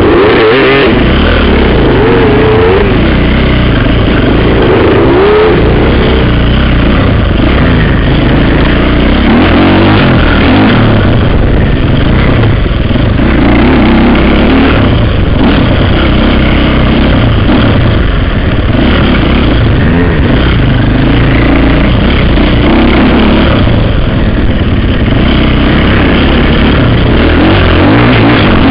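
Dirt bike engine revving up and down, its pitch rising and falling over and over, loud and close as heard from the rider's helmet.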